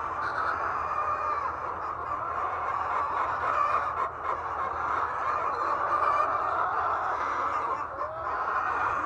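A large flock of laying hens clucking and calling over one another in a continuous din, over a steady low hum.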